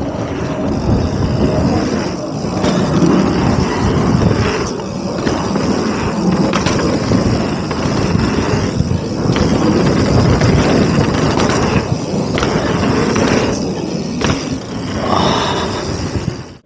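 Mountain bike riding fast down a dirt trail: tyres rolling over dirt with a constant rushing noise, and a few sharp knocks and rattles from the bike over bumps.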